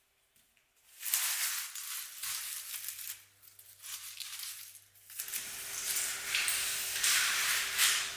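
Rustling and crinkling of packaging being handled and opened, in irregular bursts from about a second in, growing denser after about five seconds.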